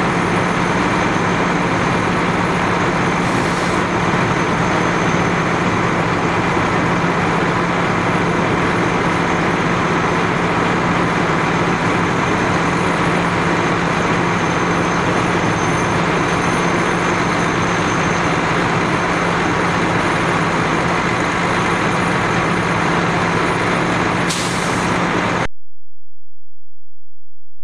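Fire truck's heavy diesel engine running steadily: a loud, even drone with a constant low hum. It is broken by a short high hiss about three seconds in and another near the end, then cuts off suddenly.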